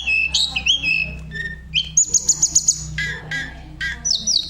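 Tledekan gunung singing a varied song of clear whistled notes: rising slurs, then a fast trill of repeated notes about two seconds in, then a few separate dropping notes, over a steady low hum.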